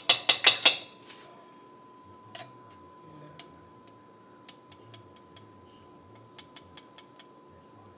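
Metal spoon clicking: a quick run of loud taps against the mixing bowl at the start, then scattered light clinks against a small glass spice jar while turmeric is scooped out.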